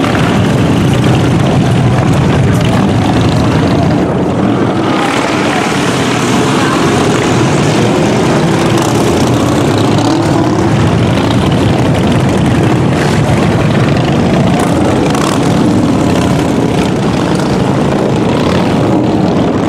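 Many motorcycle engines running at once: a loud, steady, dense rumble of a large group of bikes.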